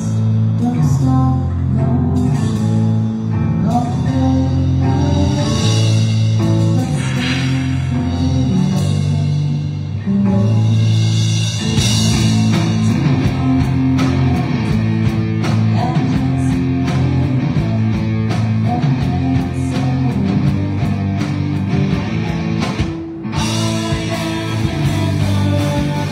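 Punk rock band playing live: electric guitar, drum kit and a singer. The band thins out briefly near the end, then comes back in full.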